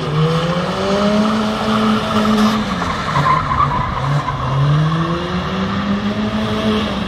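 BMW sedan spinning donuts: continuous tire squeal over the engine held at high revs, its pitch climbing and dipping twice as the throttle is worked.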